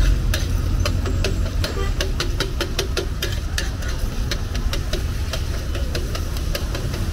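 Metal spatula clinking and scraping on a large flat tawa griddle in quick, uneven taps while liver fries in sizzling oil, over a steady low rumble.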